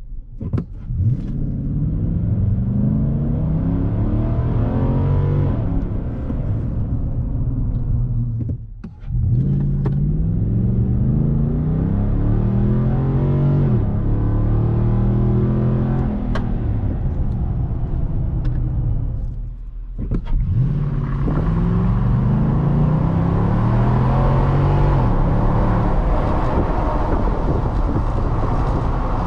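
Nissan Titan's 5.6-litre V8 engine and exhaust heard from inside the cab while the truck accelerates hard three times. Each time the engine note climbs in pitch and drops back at the upshifts, with brief dips about 9 and 20 seconds in.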